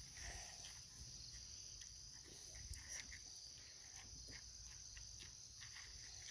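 Near silence with a faint steady high chirring of crickets, and a few soft ticks.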